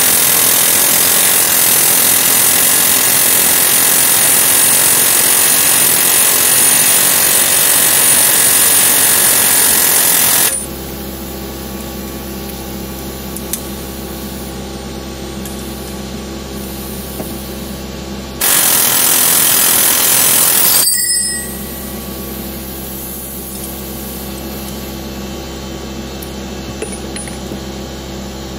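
Pneumatic air hammer running continuously against the hydraulic puller's socket, driving at a rust-seized rear axle stub to free it from the wheel hub. It runs in a long run of about ten seconds and a second, shorter run of two to three seconds, with a steady, quieter hum in between and after.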